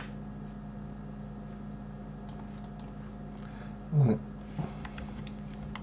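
Scattered computer keyboard and mouse clicks over a steady low hum, with one short louder sound falling in pitch about four seconds in.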